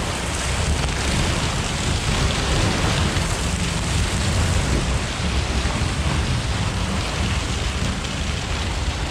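Water rushing and splashing around an inflatable tube as it slides down a water slide, a steady, loud rush with a heavy low rumble from the flow and air buffeting the microphone.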